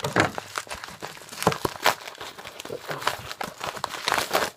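A parcel being opened by hand: plastic packaging crinkling and packing tape tearing, in an irregular run of rustles and crackles.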